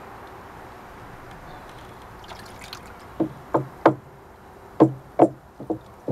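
A run of hollow knocks on a water storage tank, about eight in groups starting about halfway through, as a makeshift plug is worked into its leaking outlet. Beneath them runs a steady rush of water.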